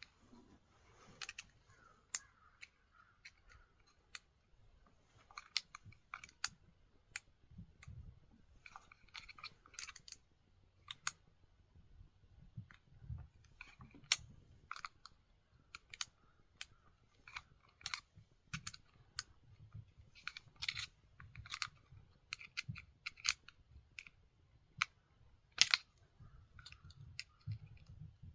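Scattered small clicks, taps and light rattles of parts and tools being handled while reassembling a Husqvarna 450 Rancher chainsaw, with short irregular clusters of sharp ticks.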